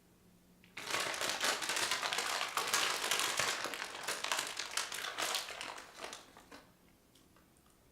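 Plastic packaging being crinkled and crumpled by hand, a dense crackling that starts abruptly about a second in and fades out after about six seconds.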